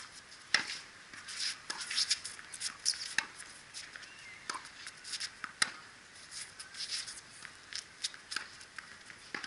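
Tennis rally on a hard court: racquets striking the ball and the ball bouncing, a string of sharp irregular knocks. The loudest comes about half a second in, with another strong one just past halfway.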